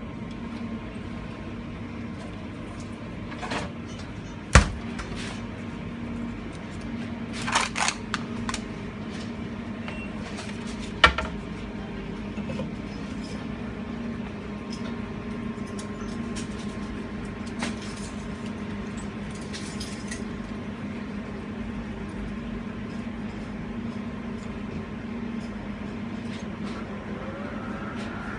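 F'real milkshake vending machine humming steadily, with clunks and clatter as its freezer door is opened and a frozen cup is handled and set into the blending station; the loudest is a sharp knock about four and a half seconds in, with another about eleven seconds in.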